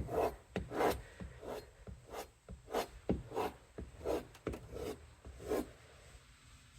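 Kitchen knife blade drawn across the sharpening stone of a Worksharp guided sharpening system in repeated scraping passes, about ten strokes at an even pace, stopping a little before the end.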